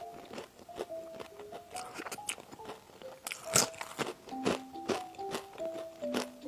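Crunchy bites and chewing of food, with a loud crunch about three and a half seconds in. Background music plays a simple melody of single notes under the eating.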